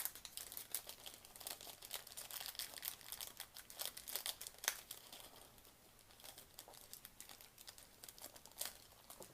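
Packaging crinkling as it is handled: a faint, irregular crackle, busier in the first half and thinning out later, with one sharper crinkle near the end.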